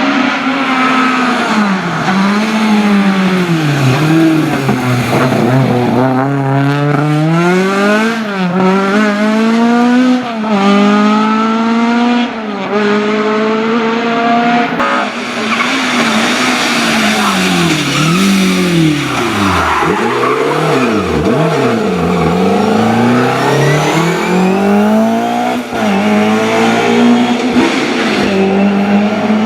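Historic rally car engines at full throttle on a special stage. Around the middle the revs climb hard several times, each climb cut off by a quick upshift; in the second half the revs rise and fall sharply again and again.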